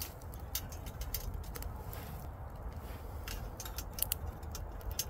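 Twig fire crackling and popping in a Firebox folding stove, with irregular sharp snaps over a steady low rumble. Light clinks come as steel cross-bars are laid across the stove's top.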